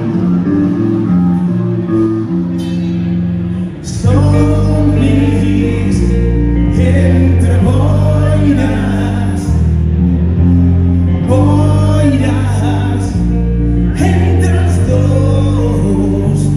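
Live band with electric guitars, bass and drums playing amplified through a PA. A quieter guitar passage opens, then about four seconds in the full band comes in louder and a woman sings over it.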